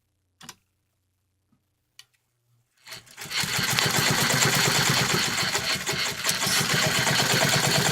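1957 Toyota Marvel De Luxe sewing machine stitching through two layers of thick fleece, starting about three seconds in and running steadily at speed with a fast stitching rhythm, going through the fabric without trouble. A couple of light clicks come before it starts.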